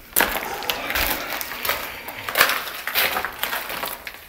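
Debris and broken wood crunching and cracking: a dense run of small cracks and snaps that starts abruptly and keeps on.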